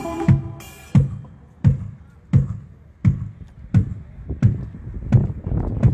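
A kick drum on a drum kit is struck alone in a steady, even beat, about one hit every 0.7 seconds, the way a single drum is tested in a sound check. In the first second a held instrument chord dies away.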